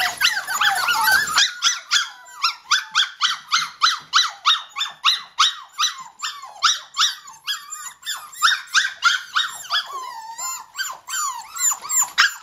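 Several Shetland Sheepdog puppies yapping and whining together: a continuous run of short, high-pitched yelps, about three a second.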